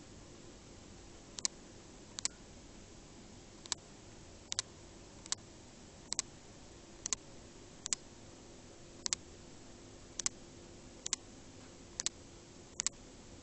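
Sharp clicks at a fairly even pace of about one a second, several of them in quick pairs, over a faint steady hum.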